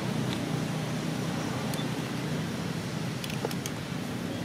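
Steady low hum under an even hiss, with a few faint short clicks around the middle and later on.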